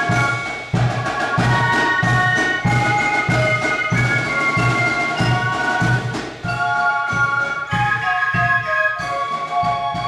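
A Spielmannszug, a German fife-and-drum corps, playing: a section of transverse flutes carries the melody in held high notes over a steady drum beat.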